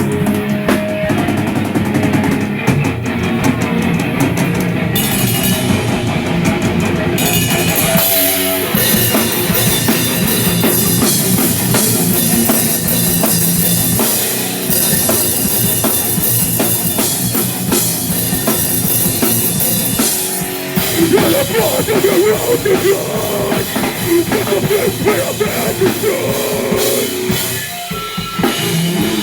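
A live rock band playing loudly, with a pounding drum kit and distorted guitars; the song shifts to a new section about eight seconds in and again about two-thirds of the way through.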